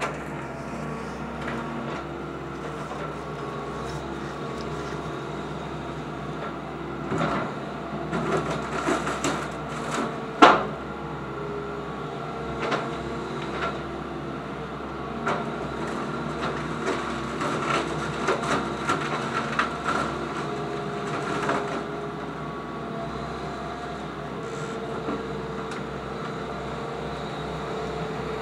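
Excavator engine and hydraulics running steadily while its bucket and thumb grab and crush demolition debris. Wood and siding crack and crunch in clusters, with the loudest single snap about ten seconds in.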